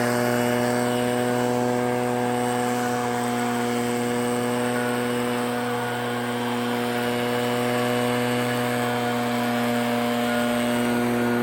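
Echo PB-9010 backpack blower's two-stroke engine running at a steady high speed with an unchanging pitch, blowing snow.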